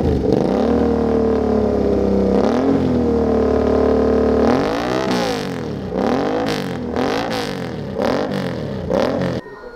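Suzuki V-Strom 650 XT's V-twin running through an Akrapovič slip-on exhaust with a catalyst section fitted to soften its sound. It runs steadily for about four seconds, then the throttle is blipped five times, each rev rising and falling, and the engine stops abruptly near the end.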